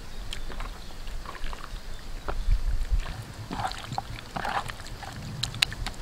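Hands squishing and slapping raw chicken pieces as they are mixed with garlic and seasoning: irregular wet squelches and small clicks.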